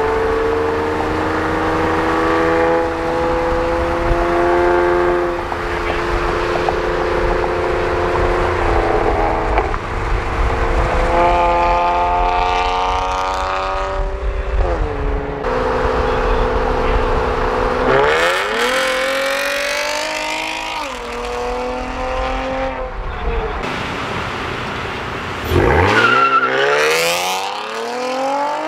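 A 2013 Honda Accord Coupe's 3.5-litre V6, breathing through a J-pipe resonator delete and a Borla axle-back exhaust, accelerating through the gears. The engine pitch climbs on each pull and drops back at each upshift, several times over, with quicker, sharper revs in the last third.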